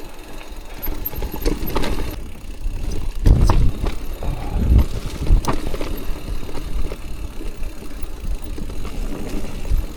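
Mountain bike riding over tree roots on a trail: an irregular rattle of knocks and clicks, with several heavier thuds about three to five seconds in.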